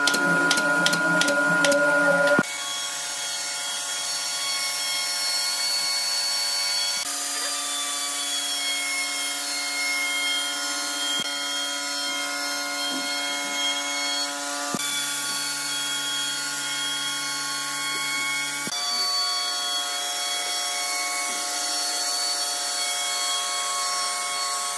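Handheld electric router running steadily with a high whine as its bit cuts into a wooden tabletop.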